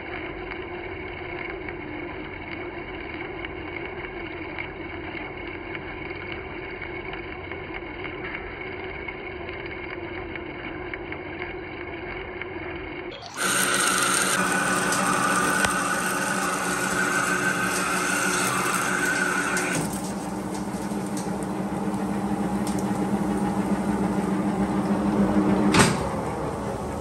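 Monarch engine lathe taking a heavy roughing cut on a 1045 steel shaft with an LNMX carbide insert under flood coolant: the machine runs steadily with coolant splashing and chips breaking off. About halfway through the sound jumps louder and brighter with a steady high whine that stops a few seconds later. Just before the end a single sharp clunk comes as a lever on the lathe apron is thrown.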